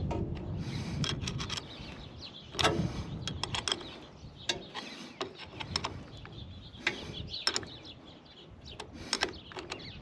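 Steel wrenches clicking and scraping on a riding mower's battery terminal bolt and nut as the cable is tightened by hand, in irregular clusters of metallic clicks.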